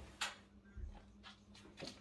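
A few short, faint rustles and scuffs of a person moving about and handling things, over a low steady hum.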